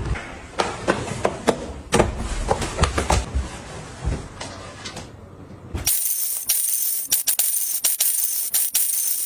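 A run of knocks and clatters over a noisy background, then, about six seconds in, it cuts abruptly to light background music with a steady jingling, tambourine-like beat.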